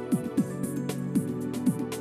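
Background music with a steady beat: deep, falling drum thumps and light high ticks over held chords.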